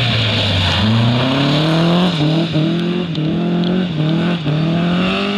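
Opel rally car's engine at high revs as it passes on wet gravel and pulls away. Its pitch climbs about a second in, then drops briefly four or five times as the throttle is lifted and reapplied.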